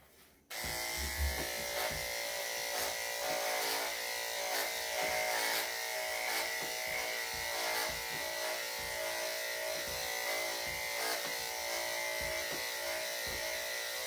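Electric dog grooming clippers fitted with a #7 blade switched on about half a second in, then running with a steady buzzing hum as they clip the dog's neck and chest coat.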